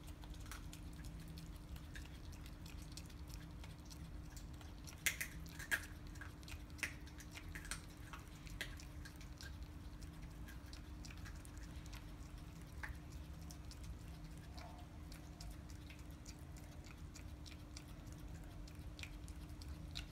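Two chihuahuas crunching and chewing raw chicken frame bones, with irregular sharp cracks of bone, the loudest cluster about five to seven seconds in. A steady low hum sits underneath.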